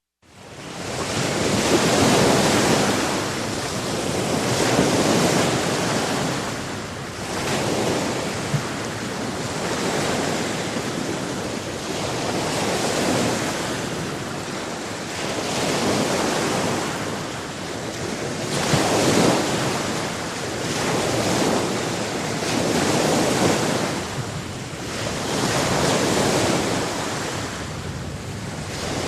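Sea surf: waves breaking and washing in, the rush swelling and fading every few seconds, fading in over the first second.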